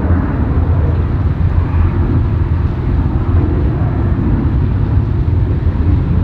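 Jet airliner on approach passing, a loud, steady low rumble of engine noise.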